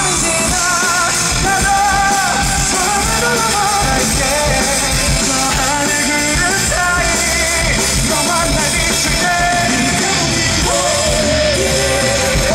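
Loud live rock band playing: drum kit and electric guitars under a sung vocal line that wavers with vibrato.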